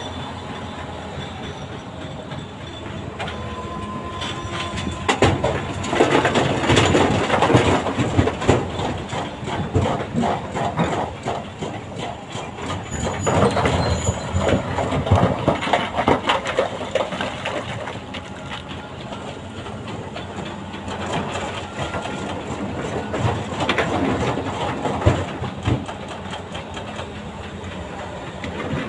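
Doosan DX340LCV excavator's diesel engine running under load as its bucket digs into broken rock and loads it into a dump truck. Rocks scrape and clatter loudly in three spells: a few seconds in, midway, and again near the end.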